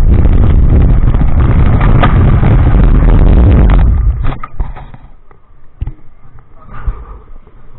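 Roller coaster ride from the front seat: heavy wind rushing over the camera microphone and the train rumbling along the steel track. About four seconds in the noise drops sharply as the train runs into the wooden station shed, leaving a few knocks and clunks from the train.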